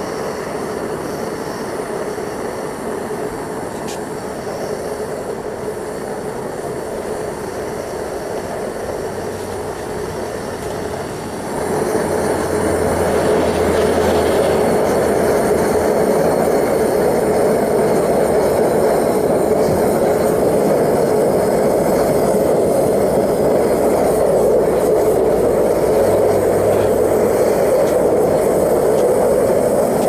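Two propane torch burners firing into a small crucible furnace with a steady rushing noise, heating silver to melt. About a third of the way in it gets clearly louder as the gas is turned up from low fire.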